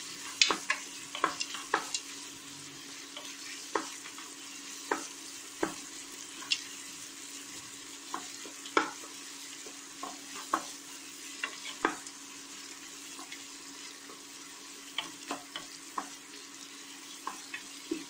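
Sliced onions frying in ghee and oil in a pressure cooker pot, a steady sizzle, while a spatula stirs them and knocks and scrapes against the pot at irregular moments.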